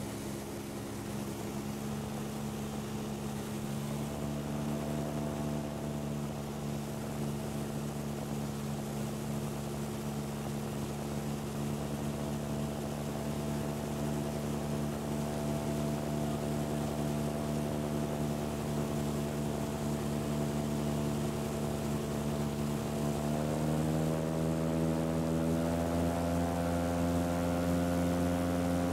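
Titan Tornado II light aircraft's engine and propeller heard from inside the cockpit, holding a steady drone. About 23 seconds in, the pitch rises and the sound grows a little louder as the engine speeds up.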